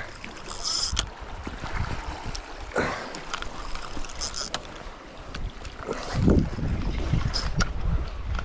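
Wind buffeting the microphone over sea water washing against rocks, with a few short bursts of hiss and scattered clicks.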